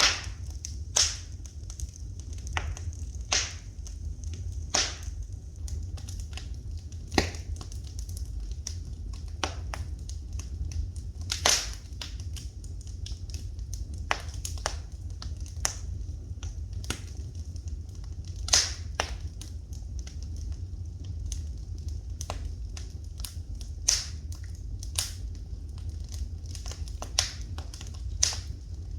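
Fire in a fireplace crackling, with irregular sharp pops and snaps, about a dozen louder than the rest, over a steady low rumble.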